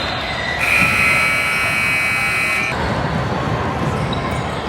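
Basketball scoreboard buzzer sounding one steady electronic note for about two seconds, starting about half a second in, over general gym background noise.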